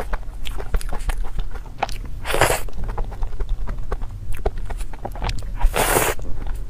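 Close-up eating sounds of a person chewing soft cream puffs: many small wet clicks and smacks from the mouth, with two short bursts of noise about two and a half and six seconds in.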